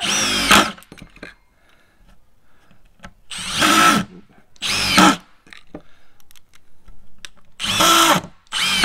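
Milwaukee M18 Fuel Gen 3 impact driver (2853-20) driving screws into a wooden board, run in about five short bursts of motor whine with short pauses between.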